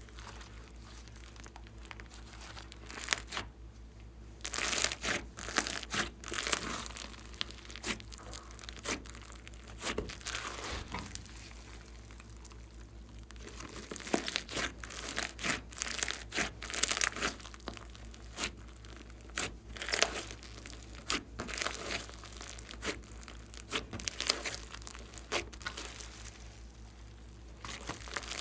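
Glossy slime being worked by hand, giving off dense runs of small sticky pops and crackles, with quieter pauses between the runs.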